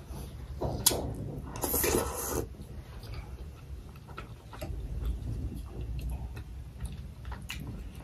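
Close-miked eating sounds: a metal spoon clicking and scraping in a glass bowl of dal, with scattered light ticks and a brief louder rustling noise about two seconds in.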